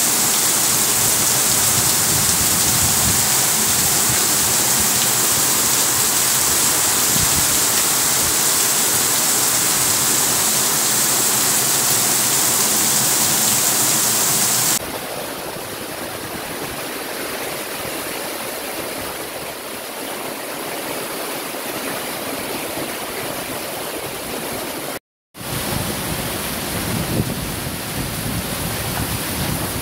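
Heavy rain pouring down, a loud even hiss. About halfway through it becomes quieter, and after a brief dropout near the end the rain goes on.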